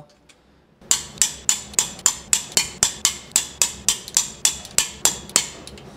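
A torque wrench's ratchet head clicks in a quick, even run of about four or five clicks a second. It is running a nut down a head stud to clamp a torque plate onto the engine block before honing.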